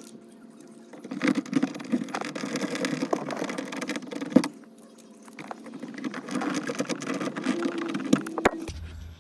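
Cordless electric screwdriver driving screws, running in two spells of about three seconds, each ending with a sharp click.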